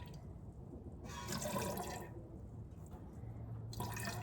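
Hand-milking a goat: streams of milk squirting from the teat into a milk pail, in hissing spurts. The strongest spurts come about a second in and again near the end.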